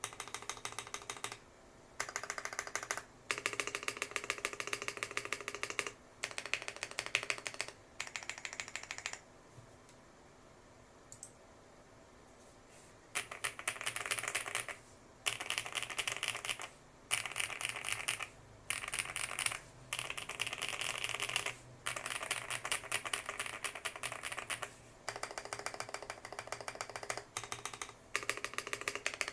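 Typing on a Lucky65 V2 gasket-mount mechanical keyboard fitted with HMX Purple linear switches and purple PC Cherry-profile keycaps: fast runs of key clacks, each a second or two long, broken by short pauses, with a pause of about four seconds near the middle.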